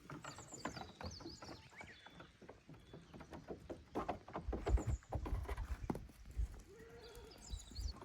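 Goats' hooves clattering and knocking, with heavier thumps in the middle. A short goat bleat comes near the end, and small birds chirp.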